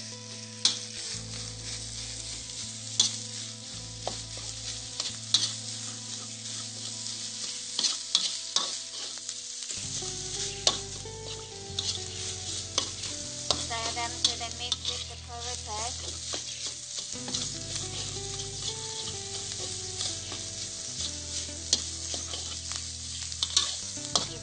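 Red curry paste and quail meat frying in hot oil in a wok, sizzling steadily. A metal spatula stirs and scrapes through it, clicking sharply against the pan many times.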